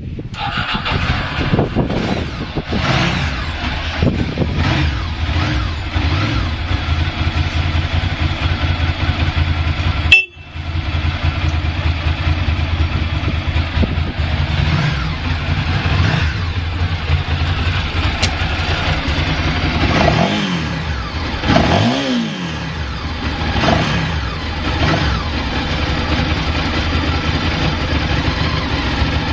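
A Ducati SS800ie's air-cooled V-twin engine idling steadily. There is a sharp click with a momentary break about ten seconds in, and two short throttle blips about twenty seconds in.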